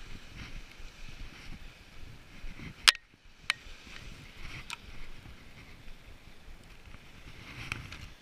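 Steady rumble of wind and surf, broken by a few sharp clicks as a spinning reel is handled close by; the loudest click comes about three seconds in.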